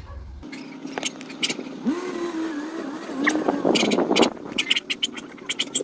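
A car engine running, a steady hum whose pitch rises about two seconds in and then wavers up and down, with a few light clicks over it.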